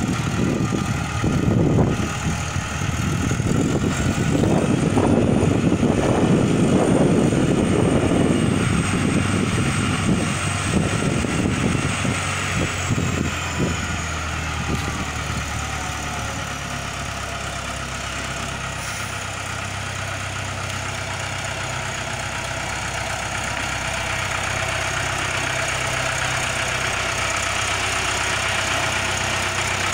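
XCMG LW156FV mini wheel loader's diesel engine running, louder and uneven for about the first dozen seconds, then settling to a steady idle.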